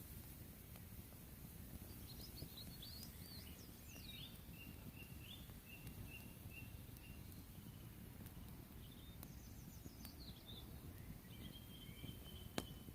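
Birds singing faintly over a low steady rumble: quick chirps, then a string of short repeated whistled notes, later a falling run of notes and one held whistle. A sharp click comes just before the end.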